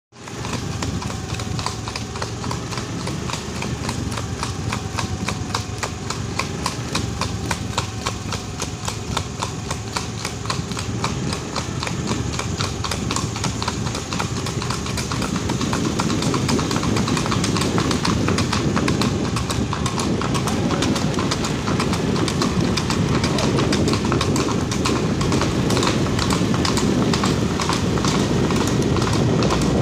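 Marwari horses' hooves striking a paved road in a quick, steady rhythm of clip-clops as they trot and canter. A low rushing noise underneath grows louder about halfway through.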